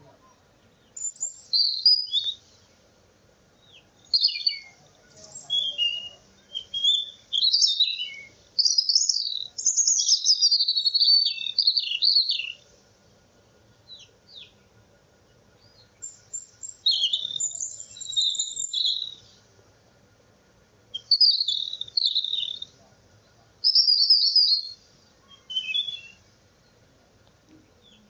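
Songbirds chirping and trilling in quick, high phrases of one to four seconds, with short pauses between them.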